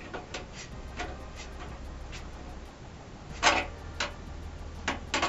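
Irregular light clicks and knocks of parts being handled and fitted in a computer case, the loudest about three and a half seconds in, over a faint low hum.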